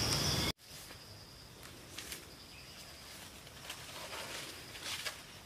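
Forest insects chirring in a steady high trill, with a few faint rustles and snaps of steps through undergrowth. The sound drops abruptly about half a second in.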